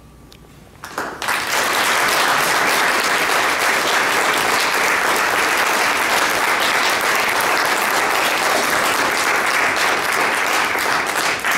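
Audience applauding, beginning about a second in after a short hush and holding steady.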